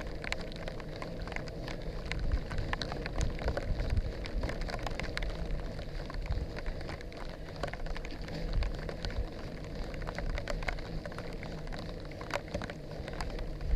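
Rain falling, with many individual drops ticking close by at irregular moments over a low steady rumble.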